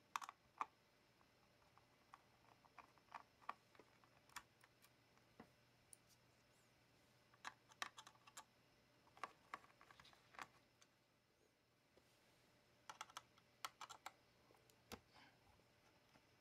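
Light clicks and taps, in small irregular clusters with quiet gaps between them.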